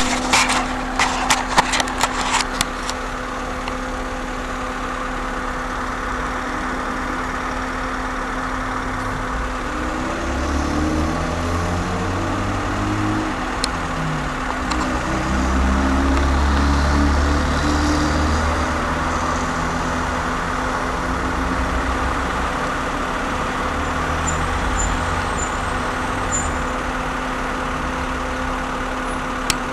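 A motor vehicle engine running with a steady hum. A quick run of clicks comes in the first three seconds, and a deeper engine rumble swells in the middle and then eases off.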